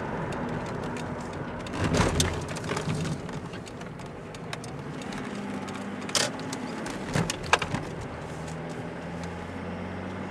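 Car engine and road noise heard from inside the cabin while driving. A cluster of louder knocks comes about two seconds in, and a few sharp clicks or thumps follow around six and seven seconds.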